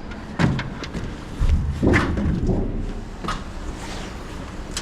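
Two dull thumps, about half a second in and again around two seconds, with a few light clicks from handling air conditioner parts.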